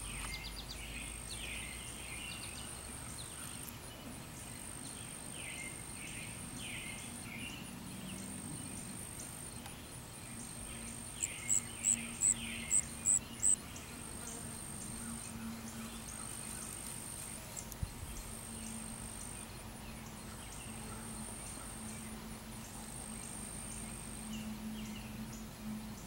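Insects chirping in repeated high-pitched trills, each a second or two long with short gaps. About eleven seconds in comes a quick series of six sharp, high chirps, the loudest sound here, and a faint steady low hum runs underneath from about ten seconds on.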